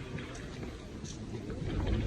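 Low rumbling background noise, like wind or handling on the microphone, slowly growing louder toward the end.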